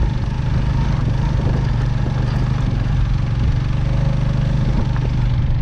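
Motorcycle engine running at a steady, unchanging pitch, with a steady rush of noise over it.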